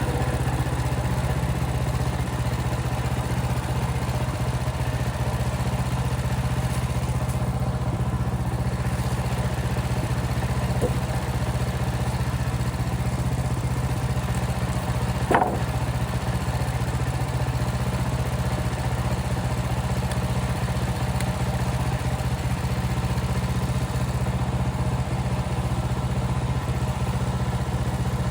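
Portable band sawmill's gas engine running steadily at an even pitch. A short sharp knock comes about 11 seconds in and a louder one about 15 seconds in.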